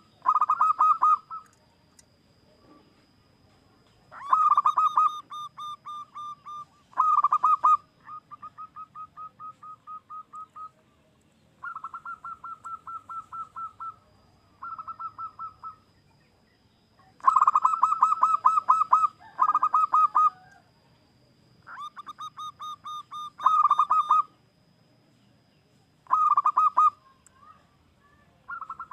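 Zebra dove (perkutut) cooing: about a dozen phrases of rapid staccato coo notes, each phrase a second or two long, some loud and some softer. A faint steady high-pitched tone runs beneath much of it.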